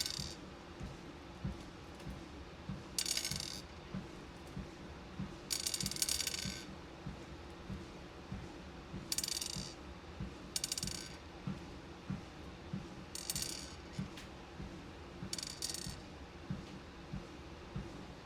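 Beads rattling and clattering in short bursts every few seconds, as if shaken or poured into a container. Under them, steady footfalls thump about twice a second on a walking pad, over a constant low hum.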